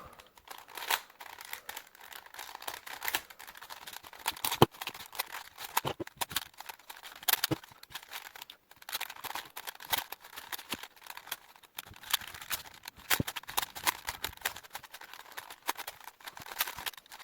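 Rubik's brand 4x4 cube being turned fast during a speedsolve: a dense, irregular run of plastic clicks and clacks as the layers turn.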